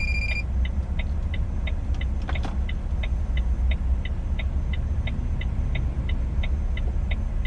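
Inside a moving truck's cab: a steady low engine and road rumble, with the turn-signal indicator ticking evenly about three times a second. A short electronic beep sounds right at the start.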